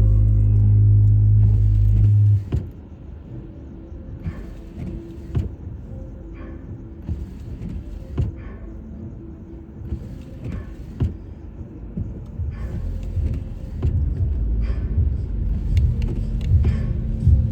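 Car driving on a snowy, icy road, heard from inside the cabin: a low road rumble, loud for the first two seconds, then dropping, with brief hissing sounds every second or two, and growing louder again near the end.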